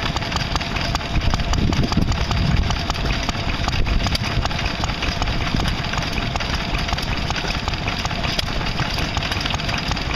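Vintage Lister stationary engine running steadily at idle, its firing strokes making a rapid, even beat.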